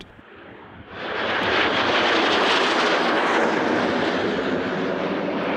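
Cessna A-37 Dragonfly's twin General Electric J85 turbojets in flight: faint at first, then the jet noise rises sharply about a second in and holds loud and steady.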